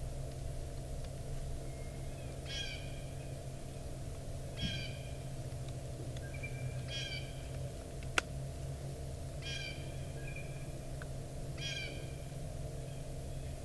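Wild turkey giving single short call notes, six of them spaced about two to three seconds apart, with a sharp click about eight seconds in.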